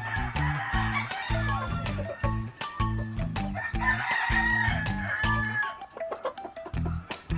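Gamefowl roosters crowing, with two long crows, the second about four seconds in, over background music with a steady bass beat.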